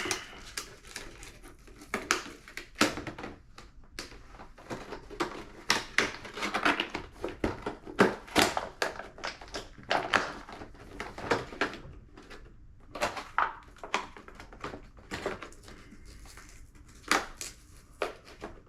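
Plastic packaging of a security hex bit set being handled and opened, with many irregular sharp clicks and crackles.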